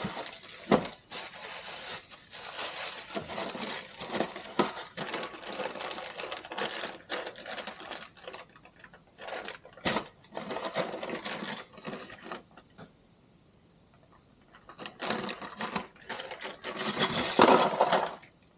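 Small plastic camera-mount parts and plastic packaging being handled and fitted together: irregular rustling, clicks and rattles. There is a quiet pause about two-thirds of the way through and a louder burst of rustling near the end.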